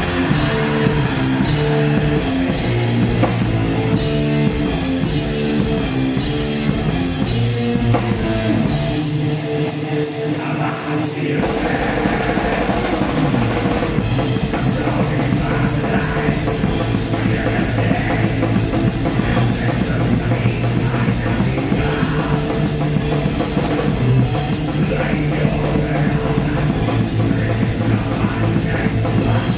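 Black metal band playing live, heard from beside the drum kit: distorted guitars over fast drumming on a full kit with cymbals. About eleven seconds in, the low end fills in and the drumming grows denser.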